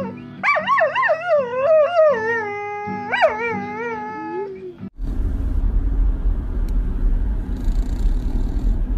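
A dog howling along to a strummed acoustic guitar: long wavering howls that rise and fall in pitch over the steady guitar chords. About five seconds in, this cuts off abruptly and gives way to a steady low rumble.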